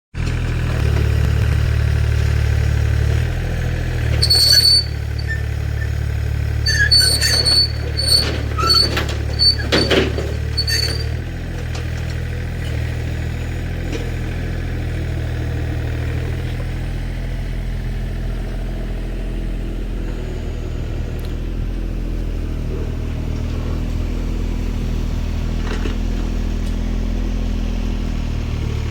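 Mini excavator's engine running steadily, with a run of short high-pitched metal squeaks and clatters between about 4 and 11 seconds in.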